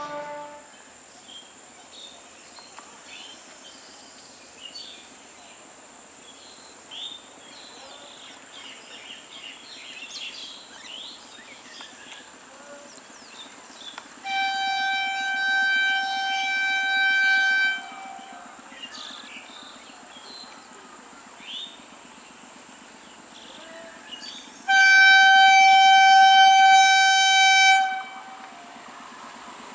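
Indian Railways train horn sounding two long blasts, each about three seconds, the second one louder.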